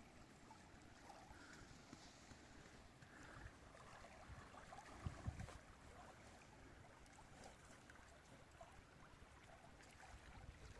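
Near silence: faint lapping of loch water at the shore.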